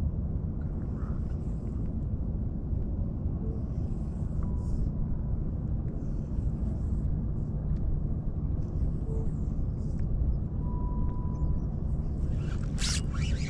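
Steady low rumble of wind buffeting the microphone in open water. A short, sharp burst of hissing noise rises over it near the end.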